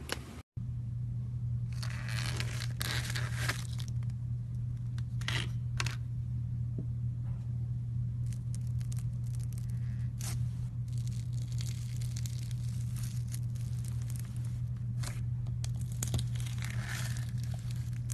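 Slime being worked by hand, giving irregular crackling, tearing pops over a steady low hum.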